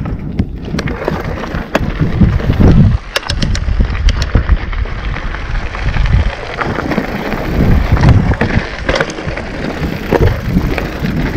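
Mountain bike ridden over a rocky trail of loose stone: tyres crunching on gravel and the bike rattling, with many sharp knocks from the frame and components over the rough ground.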